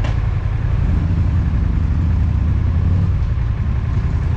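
Motorcycle engine running steadily at low revs.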